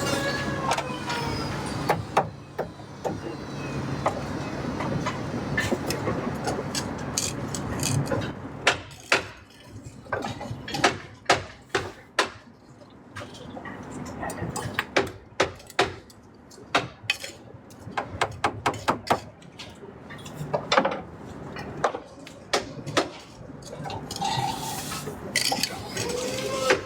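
Construction-site work noise: many irregular sharp knocks and clinks, coming in quick runs through the middle, over a steady background noise.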